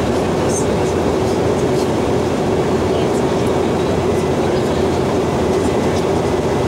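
Steady cabin noise of an Airbus A320-232 airliner in flight: IAE V2500 engines and airflow as an even rumble, with a steady hum and a few faint ticks.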